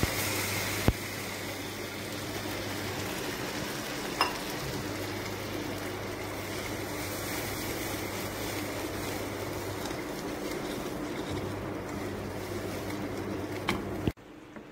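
Sugar and water heating in a pan on a gas stove while being stirred into syrup: a steady simmering hiss with a low hum and a few light knocks against the pan. The sound drops away sharply just before the end.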